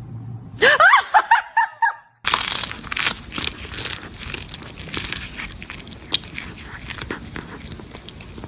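A short run of high, gliding calls about a second in. After a sudden cut, several seconds of dense, irregular crunching and crackling clicks.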